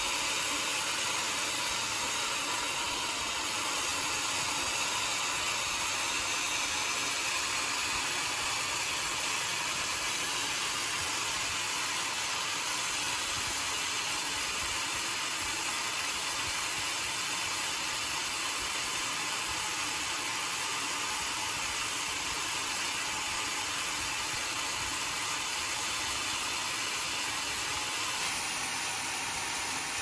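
Vertical band sawmill running steadily, a constant hissing whir from the blade and machinery while the log has not yet reached the blade.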